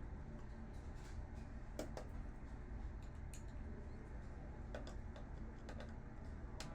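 Faint, scattered clicks and taps of a screwdriver and plastic and metal monitor parts being handled, about seven in all, over a steady low hum.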